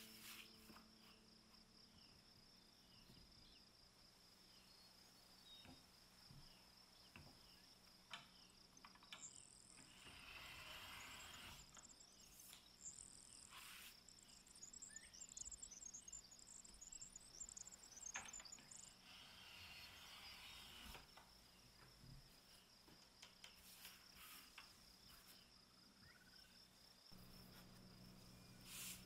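Faint, steady, high-pitched insect chirring throughout. Soft rustles and a few light clicks, as of paper being handled, come twice in the middle.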